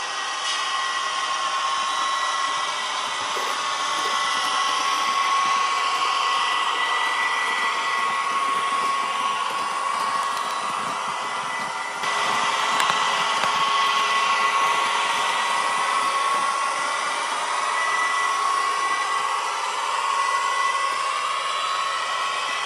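Steady whirring of model train motors and wheels running on a layout's track, with a constant high whine. The sound changes abruptly about halfway through.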